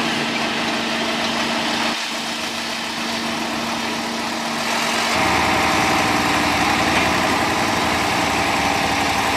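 Heavy truck engine running steadily, briefly dipping about two seconds in, then growing louder and deeper from about five seconds in as it works harder.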